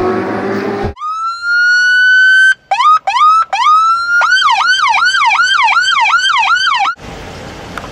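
Police car electronic siren: a wail that rises and holds, then three short whoops, then a fast yelp sweeping up and down about three times a second, cut off suddenly near the end.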